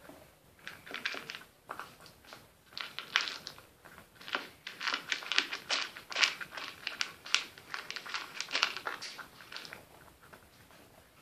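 Cat eating from a bowl, crunching its food in quick runs of sharp chewing clicks that thin out near the end.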